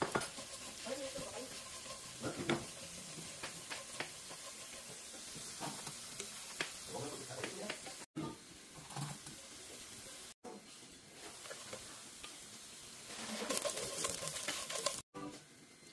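Tortilla pieces frying and sizzling in oil, stirred with a wooden spoon that scrapes them around the pan. The sizzle grows louder near the end, when sliced onion is in the oil.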